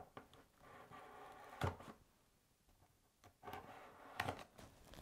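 A small pocket knife slitting the seals on a cardboard box: faint scraping of the blade in two passes, each with a sharp click.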